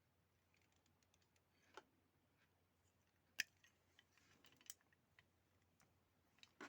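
Faint handling of small hand tools on a fan's wire: scattered light clicks and snips, the sharpest about three and a half seconds in, with soft rustling between.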